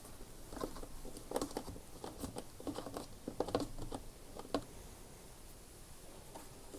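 Light clicks and scrapes of a Torx screwdriver turning screws out of a plastic lawnmower housing. The irregular small ticks fade out after about four and a half seconds.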